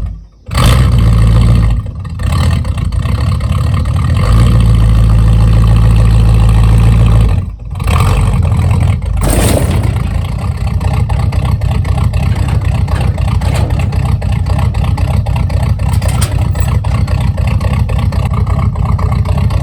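1982 Ford F-150's 302 V8 through a 3-to-4-inch step exhaust, very loud under throttle while driving. Loud pulls are broken by a few brief dips, then the engine runs steadily at a lower level.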